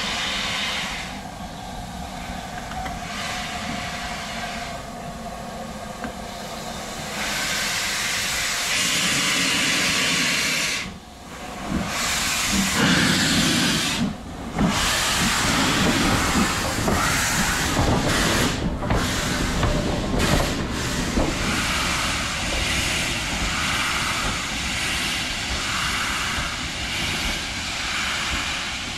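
LMS Black 5 two-cylinder steam locomotive hissing steam as it moves slowly on a test run after overhaul. Near the end its exhaust beats come evenly, about one a second.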